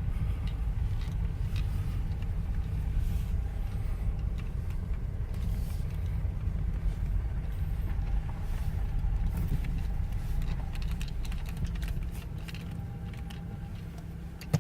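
BMW E36 318i's M40 1.8-litre four-cylinder engine running steadily with a low rumble, just restarted after standing for ten months. It drops quieter about twelve seconds in.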